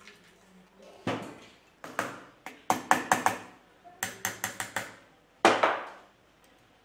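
Small hammer tapping brass rosette ornaments onto the side plate of a mini brass cannon's carriage. Sharp taps come singly and in quick runs of four or five, and one of the hardest blows falls near the end.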